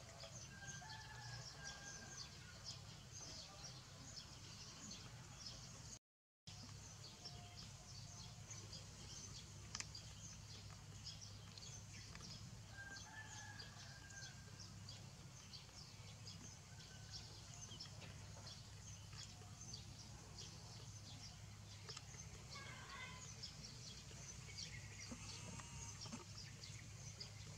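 Faint outdoor background of chickens clucking and crowing in the distance, over a steady low hum and a fine, constant ticking. The sound cuts out completely for a moment about six seconds in.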